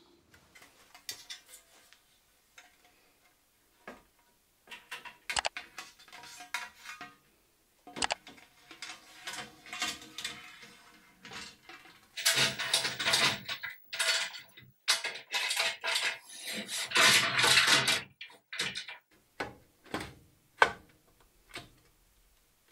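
Steel parts of a Laguna Fusion 3 cabinet saw being handled and fitted during assembly: scattered clanks and knocks of metal on metal. There are two longer stretches of scraping and rattling, one about halfway through and one a little after.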